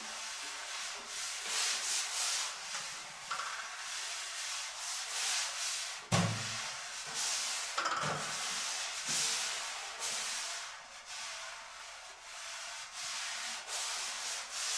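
Prepared viola and prepared timpani playing an extended-technique passage: unpitched scraping and rubbing strokes that swell and fade one after another, with a sudden soft low drum thud about six seconds in.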